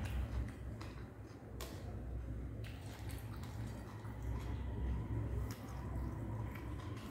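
Eating by hand close to the microphone: chewing a mouthful of rice with potato and egg, with soft wet squishes and scattered clicks as fingers mix the rice on the plate.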